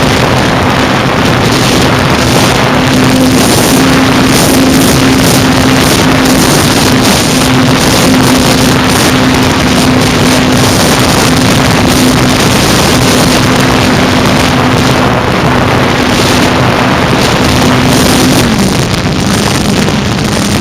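Electric motor and propeller of a Parkzone F4U Corsair RC model plane humming steadily under heavy wind rush on the onboard microphone. Its pitch drops about two seconds before the end.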